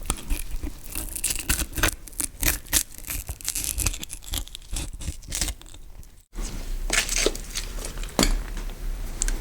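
Gory foley of a knife cutting fast into a carcass cavity: quick wet tearing and scraping strokes against bone. It breaks off in a moment of silence about six seconds in, then knife cutting and hands handling raw meat follow.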